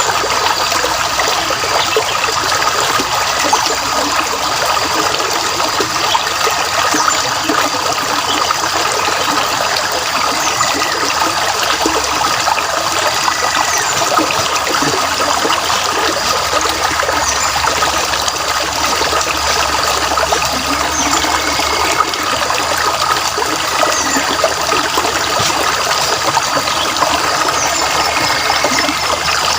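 A stream trickling and flowing steadily, with a few short bird chirps over it.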